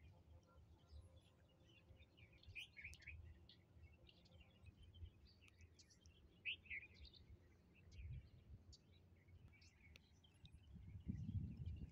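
Faint outdoor ambience: small birds chirping and twittering on and off, over a low rumble of wind on the microphone that grows louder for about a second near the end.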